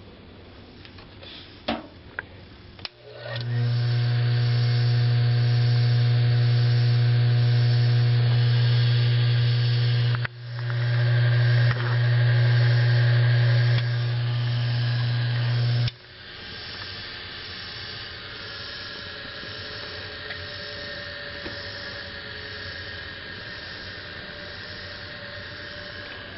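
Bench lathe's two-speed capacitor- or split-phase-start induction motor being switched on. After a couple of clicks comes a loud, steady low electric hum, which cuts out briefly about ten seconds in and builds back. The hum stops abruptly about sixteen seconds in, leaving the quieter, steady sound of the motor running.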